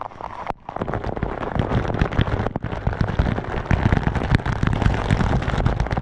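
Waterfall water splashing straight onto the camera and its microphone: a loud, crackling spatter of drops and splashes hitting it, cutting out briefly twice in the first few seconds.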